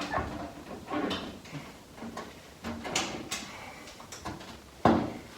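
Hand work fitting fender bolts on a truck body: scattered clinks, knocks and short scrapes of metal hardware and tools, the loudest knock about five seconds in.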